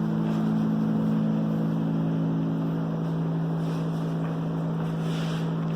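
A steady low mechanical hum over a hiss, holding even throughout and cutting off suddenly at the very end.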